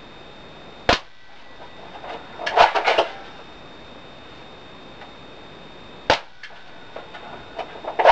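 Airsoft G36C rifle shooting: a single sharp crack about a second in and another around six seconds, with clusters of several quick clacks around two and a half seconds and again at the end.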